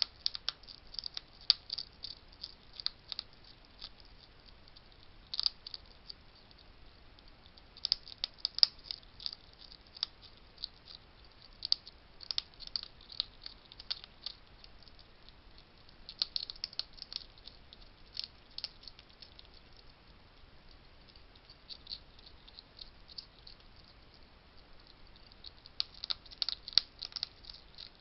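Wild hedgehogs crunching dry food at a feeding station: irregular bursts of small, sharp crunching clicks with short pauses between.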